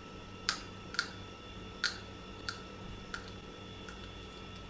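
Seed shells cracked between the front teeth: a run of sharp little cracks about every half second to a second, fading after about three seconds, with one more near the end.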